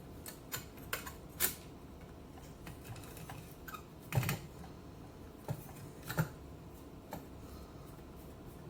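Irregular light clicks and taps of a screwdriver and small screws against the parts of an Automatic Electric Type 90 telephone during reassembly. The loudest knock comes about four seconds in.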